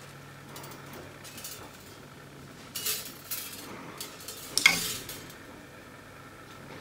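Thin metal layers of a flat, star-shaped wind spinner clinking and scraping against each other as it is handled: a few scattered rattles, the loudest a ringing clink a little past the middle.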